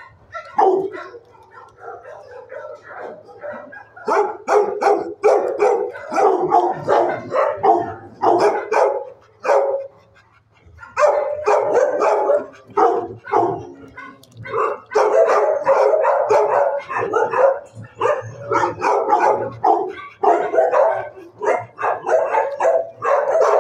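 Many dogs barking in a row of animal-shelter kennels, short barks overlapping in dense runs, easing off for a few seconds near the start and briefly midway.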